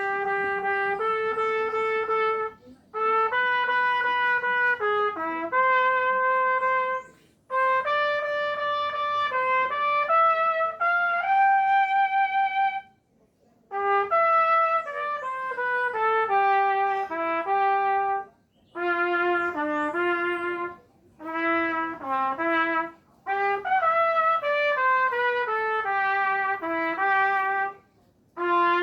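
A solo wind instrument plays a praise-song melody, one note at a time, in short phrases broken by brief pauses for breath.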